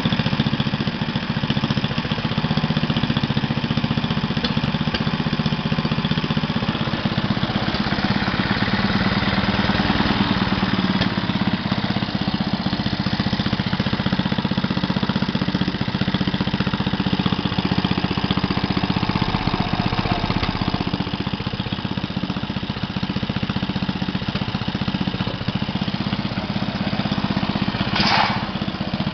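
Briggs and Stratton Model 8 single-cylinder engine running steadily and evenly, a nice-running engine.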